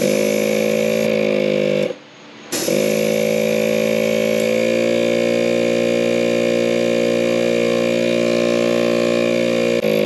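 ARB single-cylinder on-board air compressor running with a steady electric-motor hum, building pressure. It cuts off about two seconds in, starts again half a second later and runs on, its pitch rising slightly a few seconds later.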